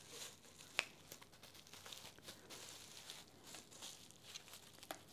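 Plastic bubble wrap crinkling and rustling faintly as it is pulled off a metal rod, with a few sharper crackles, one about a second in.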